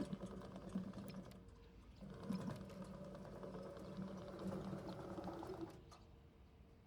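Brushed electric drive motors of a remote control tracked chassis running with a steady whine, easing off briefly about a second and a half in, then stopping near the end.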